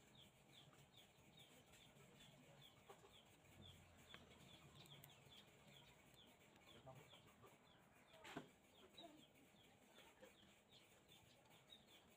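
Faint bird chirping: a short, high, falling call repeated about three times a second, with a single sharp knock about eight seconds in.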